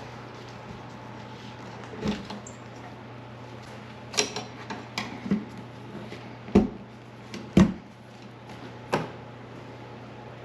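Scattered sharp clicks and knocks of hand tools and parts being handled during tailgate repair work, over a steady low hum. About seven knocks come at irregular intervals; the two loudest fall in the second half.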